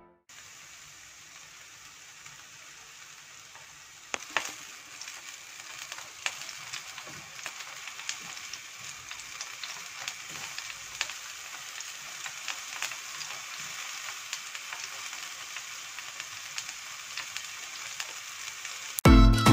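Marinated chicken skewers sizzling on an electric table grill, with scattered sharp pops and crackles. The sizzle grows louder about four seconds in.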